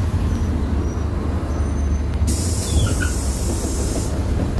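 Steady low drone of a PAZ 320414 bus heard from inside the cabin, with a hiss of released air from the bus's pneumatics starting about two seconds in and lasting nearly two seconds.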